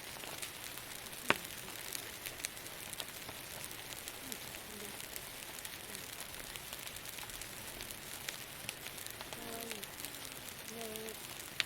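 Wood campfire crackling, with many small scattered pops over a steady hiss and one sharp, louder crack about a second in.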